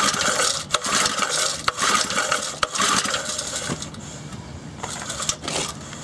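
A Briggs & Stratton 2 hp single-cylinder engine is being pull-started by its recoil starter cord. There are about four quick pulls, one a second, each a rasping whirr as the engine turns over without catching. A quieter pause with a few clicks follows near the end.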